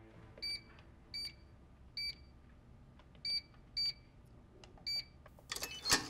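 Electronic keypad safe beeping as a code is keyed in: six short, high beeps at uneven intervals, one per button press. Near the end comes a louder burst of clicks and clatter.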